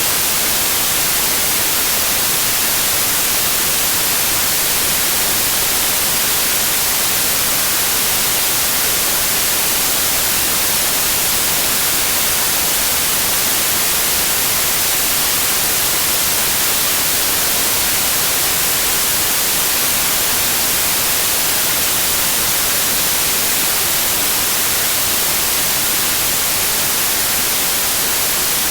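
Steady synthetic white noise: an even, unbroken hiss, strongest in the high frequencies.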